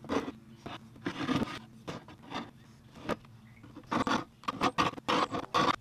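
Steel hive tool scraping propolis off the wooden edges of a beehive deep box. Separate strokes at first, then quick, louder strokes close together from about four seconds in.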